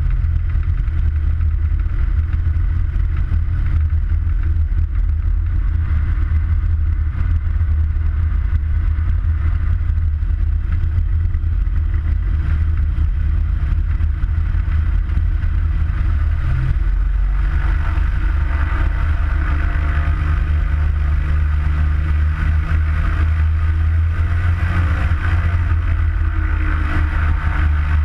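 Single-engine light aircraft's piston engine and propeller running steadily at low taxi power. It is heard from close up under the wing, as a loud, unbroken low drone.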